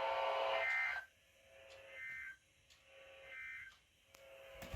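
NOAA Weather Radio sending the EAS end-of-message (SAME 'NNNN') data tones after a required weekly test: three short, buzzy digital bursts about a second and a half apart, which mark the end of the alert message.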